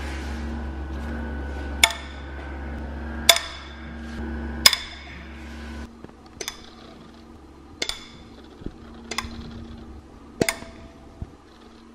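Cylinder head bolts on a BMW M54 engine being broken loose one after another with a long breaker bar and E12 external Torx socket: a sharp crack each time a bolt lets go, about eight in all, with a few much louder than the rest.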